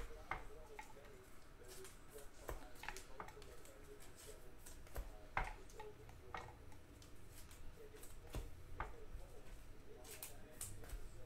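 Panini Prizm trading cards being handled and flipped through by hand: irregular light clicks and snaps of card edges and card faces against each other, a few a second, with one or two louder snaps about halfway through.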